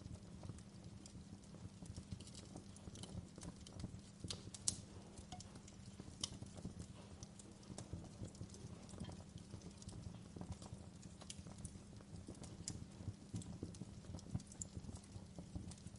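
Wood fire crackling: irregular small pops and snaps over a low steady rumble, with one sharper pop about four and a half seconds in.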